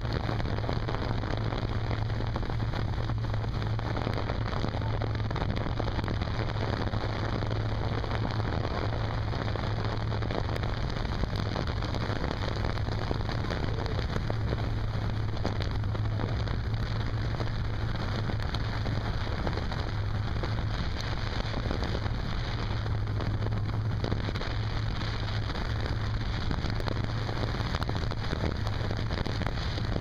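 Motorboat running up a river: a steady low engine drone under a continuous hiss of rushing, splashing water and wind.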